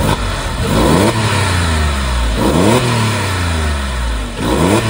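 Porsche 911's flat-six engine on its stock factory exhaust, blipped from idle three times, each rev rising and falling back to a steady low idle. The owner finds this factory exhaust note kind of quiet.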